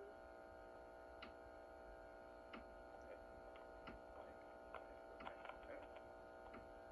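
Near silence: a faint steady hum with scattered faint clicks and ticks, a few more of them in the second half.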